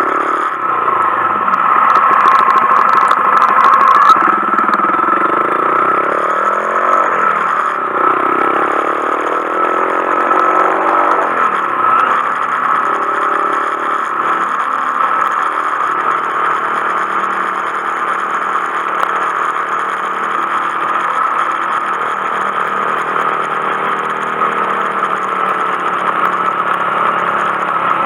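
Honda Monkey 125's single-cylinder four-stroke engine riding along. Its pitch rises and falls several times through the first dozen seconds as it accelerates and shifts, then it runs at a fairly steady cruise.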